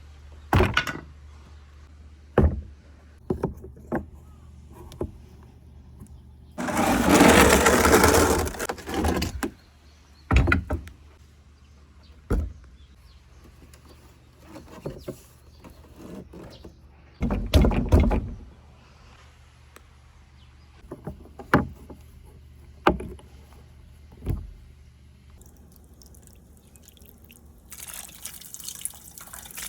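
Plastic balls of a water marble run clicking and knocking along the track one by one, with two longer rushing stretches, about seven and about seventeen seconds in, as the balls run together. Near the end, water starts running steadily.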